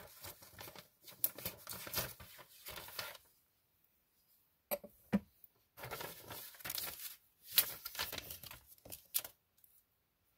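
Cellophane wrap and tape being peeled and crinkled off a plastic card top loader: irregular bursts of crackling and tearing, with a pause of about a second and a half near the middle.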